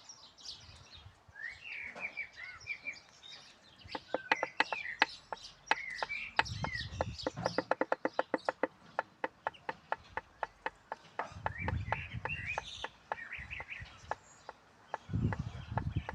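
Birds chirping, with a fast run of sharp knocks, about five a second, from about four seconds in to the middle, then sparser knocks. A few short low rumbles come and go.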